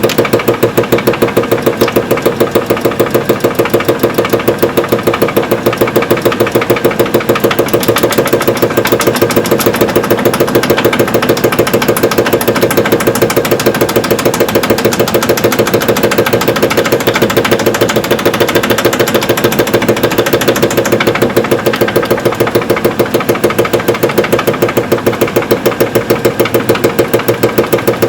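Evrika-3M washing machine's drum spinning on the spin cycle, a steady mechanical hum with a rapid, regular knocking running through it: the knock of a worn drum bearing.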